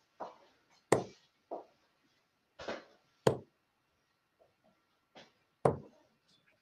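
Darts thudding into a Target Pro Tour bristle dartboard: three sharp knocks a little over two seconds apart.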